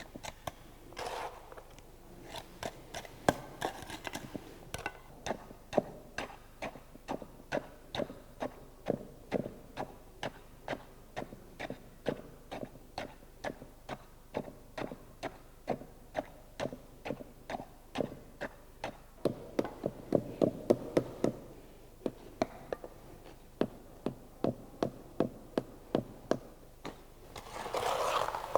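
Fresh concrete being compacted in a test mould: steady, evenly spaced strikes about two a second, with a quicker, louder run of blows about two-thirds of the way through and a short scrape near the end.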